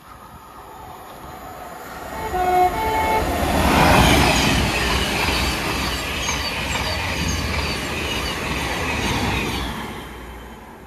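A train sounds a short two-note horn, then passes at speed with a loud rushing rumble and regular clicks of wheels over rail joints. The noise peaks about four seconds in and fades near the end.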